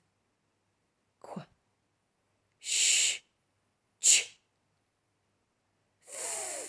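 A voice saying pure phonics letter sounds one at a time, with pauses between: a hissed 'zz' near three seconds in, a very short sharp 'ch' about a second later, and a breathy 'th' near the end.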